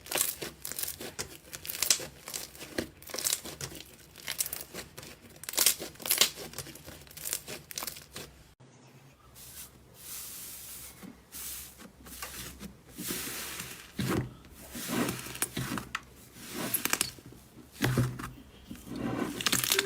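Slime being squeezed, poked and stretched by hand close to the microphone: a dense run of sticky crackles, clicks and small air pops. About a third of the way in the sound breaks off for a moment and picks up again with another slime.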